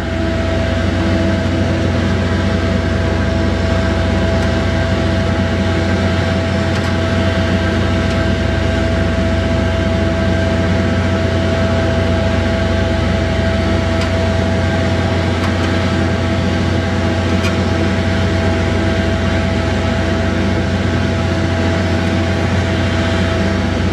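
A steady mechanical hum with a constant whine above it, unchanging throughout.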